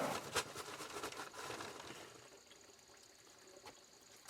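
Wet mortar being worked and scraped in a mix, gritty scrapes and a few sharp knocks for about two seconds, then only faint rustling.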